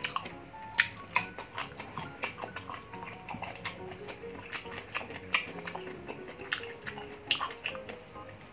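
Close-up crunching and chewing of raw green mango: sharp, irregular crunches, loudest about a second in and near the end, over light background music with a simple stepping melody.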